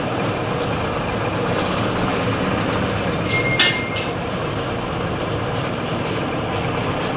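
Steady mechanical din of a metal fabrication workshop, with one ringing clang of struck steel about three and a half seconds in.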